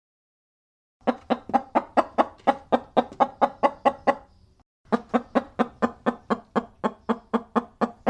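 Chicken clucking: two runs of rapid, evenly spaced clucks, about four or five a second, with a short break between them about halfway through.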